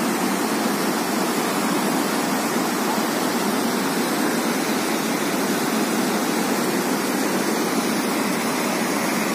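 Brown floodwater rushing out through the open sluice gates of a dam and churning in the basin below: a steady, unbroken rush of water.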